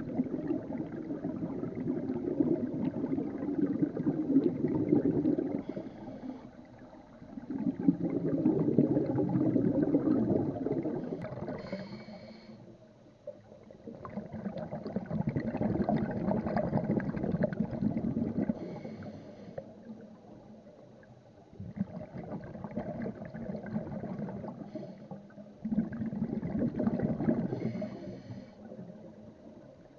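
A scuba diver breathing underwater through a regulator: five long bubbling gushes of exhaled air, each a few seconds long, and a short hiss of inhalation between them.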